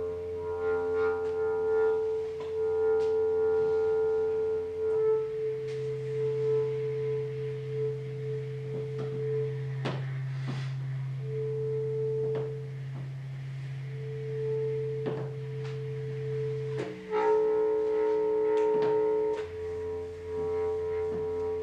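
Solo bass clarinet in long held tones, often two pitches sounding at once: a high, pure tone that breaks off and returns over a low tone that shifts pitch twice. Scattered soft clicks of the keys are heard throughout.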